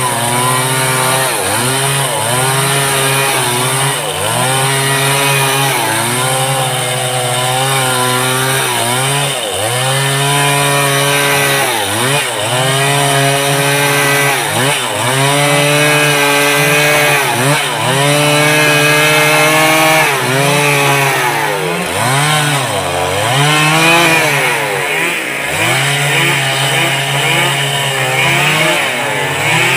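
Stihl two-stroke chainsaw running at high throttle while cutting into wood. The engine's pitch sags every second or two as the chain bites and loads it, then climbs back.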